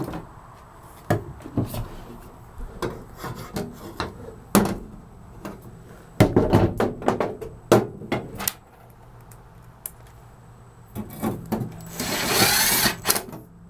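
Scattered knocks and clanks of hand tools and a steel floor patch being worked, with a dense run of taps about six to eight seconds in. Near the end a power driver runs for about a second and a half, driving screws to hold the patch down.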